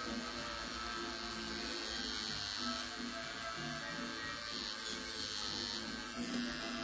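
Steady buzz of a small electric motor, with music playing faintly underneath.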